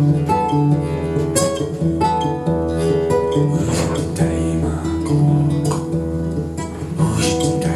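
Acoustic guitar played with strummed and plucked chords.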